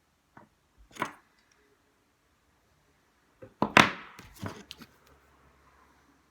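Sharp clicks and knocks of small parts and tools being handled on a work surface: a light click, a sharper knock about a second in, then a quick cluster of knocks and clicks past the halfway point, the loudest among them.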